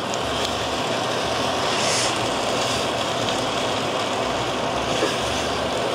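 Food frying in a pan on a gas stove under a steady rushing noise that holds evenly throughout.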